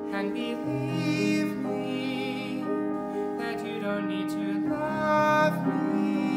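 Grand piano accompaniment under a young man's solo voice singing long held notes with vibrato, in a slow musical-theatre ballad.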